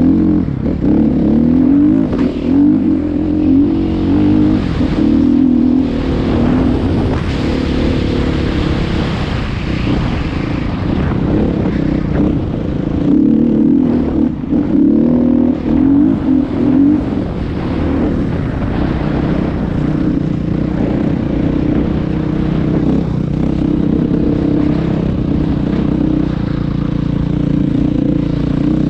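Vehicle engine running steadily under way, its pitch wavering a little, with a broad rushing noise over it.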